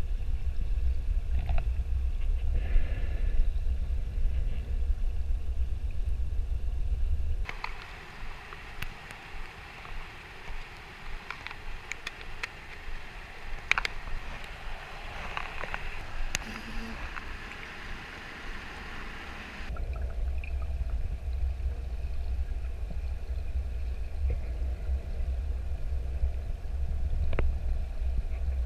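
Steady low rumble of water pressing on a submerged camera housing. For about twelve seconds in the middle the rumble stops; above the water there is a light hiss with scattered sharp clicks as a plastic bait box and fishing rod are handled. Then the low rumble returns.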